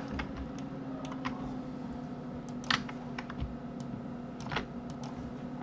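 Scattered clicks of a computer keyboard and mouse, about ten in all, with two louder ones about two and a half and four and a half seconds in. A low steady hum runs underneath.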